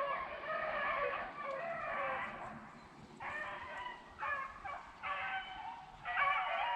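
A pack of beagles baying together while running a rabbit. Overlapping calls come and go in bursts, with a lull about three seconds in.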